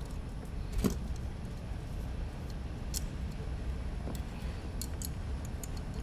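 Light clicks and taps from hands handling a small carbon-fibre drone frame and a hex driver on a work mat, the sharpest tap just under a second in and a few small ticks later. A steady low rumble runs underneath.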